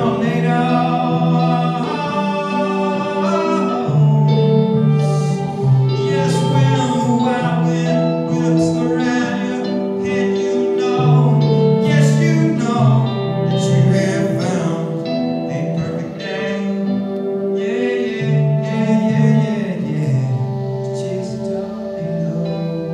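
Live performance of a song on electric guitar with a man singing, ringing out in a reverberant church hall.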